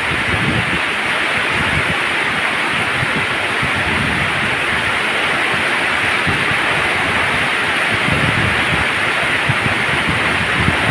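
Heavy tropical downpour: a dense, steady hiss of rain pouring onto a paved road and lawn.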